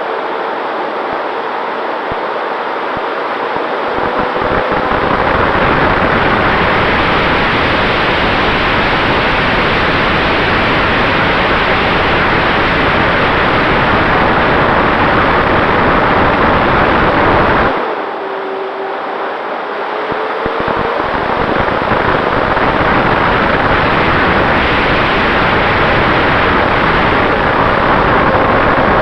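Wind rushing over the onboard camera's microphone on an electric RC P-51D Mustang model in flight, with the hum of its brushless motor and propeller underneath. About 18 seconds in, the rush briefly drops away and the motor hum dips in pitch, then climbs back up as the noise builds again.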